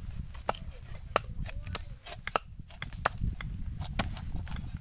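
Cleaver chopping a raw whole chicken on a round wooden chopping board: a quick series of sharp, irregularly spaced chops, about a dozen.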